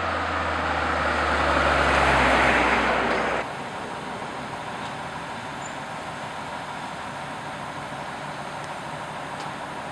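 A road vehicle running close by with a steady low engine hum and tyre noise, growing louder over the first couple of seconds. It cuts off abruptly about three and a half seconds in, leaving steady, quieter outdoor background noise.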